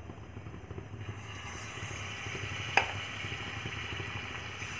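Batter-coated mushroom pieces deep-frying in hot oil, the sizzle starting about a second in and building, over a low steady hum. One sharp click near the middle.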